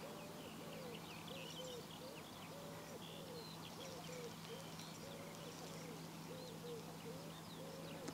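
Faint riverside wildlife: a steady series of short, low hooting calls, about two a second, with small birds chirping higher up over a faint steady low hum.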